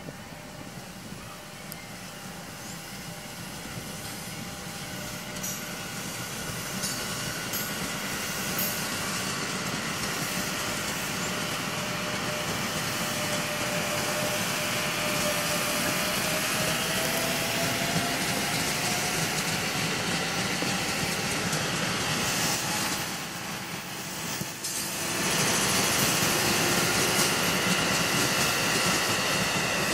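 KRL Commuterline electric multiple unit running past on the rails. The wheel-on-rail noise grows steadily louder, with a slowly rising whine in the middle. About 25 seconds in the sound briefly drops, then another commuter train is heard running past at full loudness.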